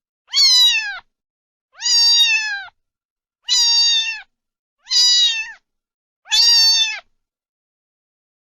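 A cat meowing five times in a row, each meow high-pitched, about two-thirds of a second long and dropping in pitch at the end, with silent gaps between.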